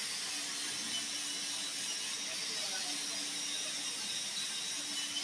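Steady workshop machinery noise: an even hiss with a low hum that drops out and returns a few times.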